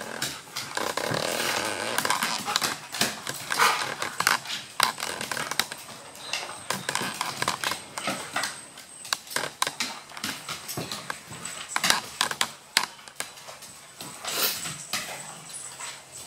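A Golden Retriever and a Maltese playing rough, with growling and many quick clicks and scrabbles of claws on a hardwood floor.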